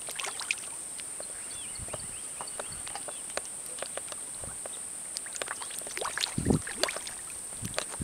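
Catfish feeding at the surface of a pond: irregular small splashes and pops as they break the water, with a bigger, deeper splash about six and a half seconds in.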